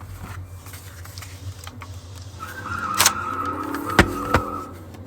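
Handling of a First Alert Onelink smoke detector while it is being unlinked: three sharp plastic clicks, about three and four seconds in, over a wavering high tone that lasts a little over two seconds.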